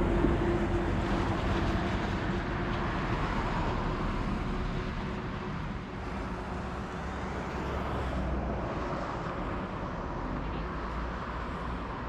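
Steady running noise of a moving vehicle, with a faint steady hum that fades out about five seconds in.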